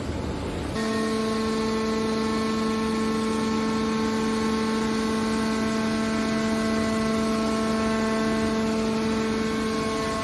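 Hydraulic can baler's motor and pump running with a steady, even-pitched hum that starts abruptly about a second in.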